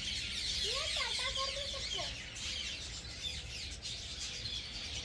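A flock of small aviary birds chattering without pause in a dense mass of high chirps. A few lower, rising calls stand out about a second in.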